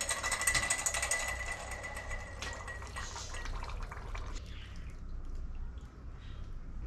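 A red-hot spring-steel spear tip being quenched in a can of quenching liquid, hissing and crackling fiercely. The sizzle dies down after about four seconds as the steel cools during hardening.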